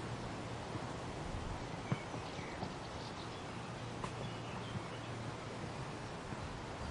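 Wind rustling through the leaves and hanging branches of a weeping willow, a steady hiss, with a few faint high chirps and a couple of soft clicks, the sharpest about two seconds in.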